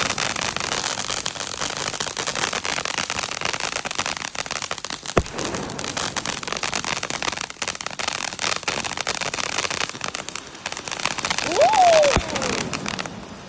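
Fireworks crackling densely and continuously, with a single sharp bang about five seconds in. Near the end a brief tone rises and then falls in pitch, the loudest moment, and the crackling stops just before the end.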